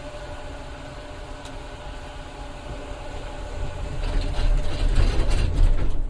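Elevator running: a steady low mechanical rumble with a faint held hum, growing louder with rattling and clicking about halfway through.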